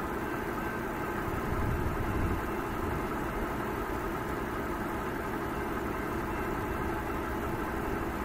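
Distant diesel locomotives of an approaching Norfolk Southern freight, an EMD SD70 and a GE AC44C6M, heard as a steady low rumble with a slight swell about two seconds in.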